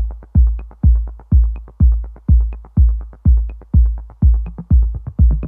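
Electronic dance music backing track: a steady four-on-the-floor kick drum at about two beats a second, with a faint high tick roughly once a second.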